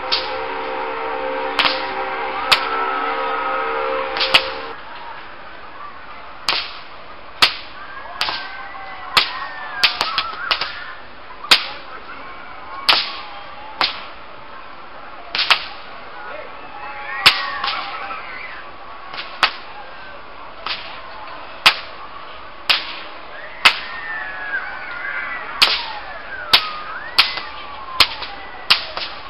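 A long whip cracked over and over: sharp, loud cracks about once a second, now and then two in quick succession.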